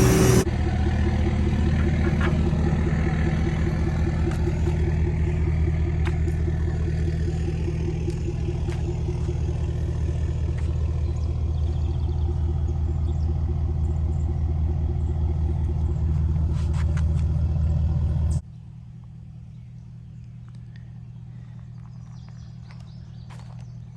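A large engine running steadily with a low, even pulse. About eighteen seconds in the sound drops off abruptly, leaving a much quieter steady low hum.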